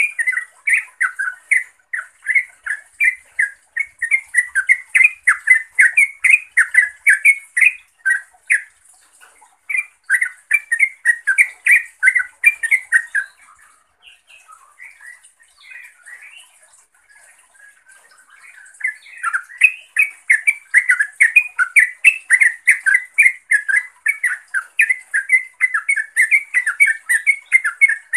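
Yellow-vented bulbul (trucukan) calling to rivals or companions in a fast, bubbly chatter of short notes, several a second. About halfway through, the chatter thins to a few scattered, quieter notes for some five seconds, then picks up again.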